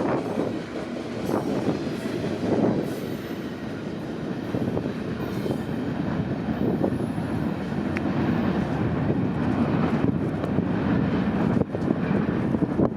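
Freight cars of a passing train rolling by: a steady rumble of steel wheels on the rails.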